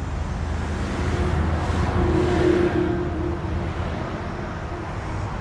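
Road traffic: a vehicle passing by, swelling to its loudest about two seconds in and then fading over a steady low rumble.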